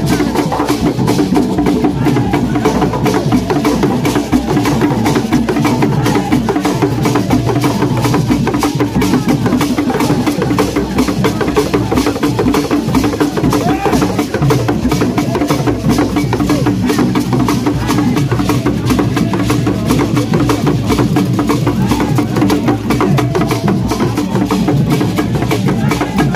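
Ghanaian traditional drum ensemble of wooden hand drums played live in a continuous rhythm of rapid strokes, with crowd voices over it.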